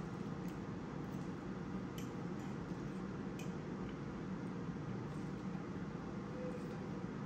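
Quiet eating with a fork: a few light clicks of the fork against a plate and chewing, over a steady low room hum.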